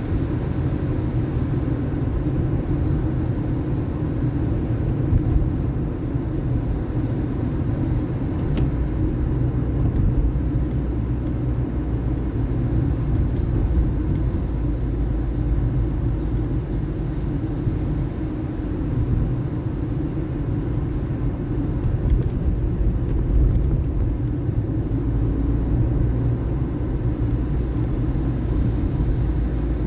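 Car driving: a steady, low engine and road rumble that continues without a break.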